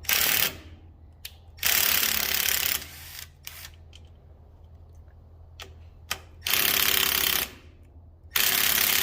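Milwaukee cordless impact wrench hammering in several bursts of about half a second to a second and a half, with brief blips between them as the trigger is pulled, working on bolts. Its battery is running flat.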